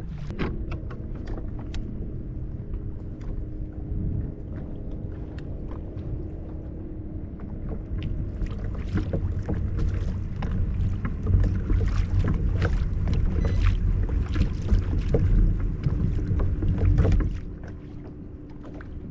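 Motorboat engine running underway, a steady drone with many sharp knocks and slaps over it. It grows louder midway, then drops off sharply about 17 seconds in.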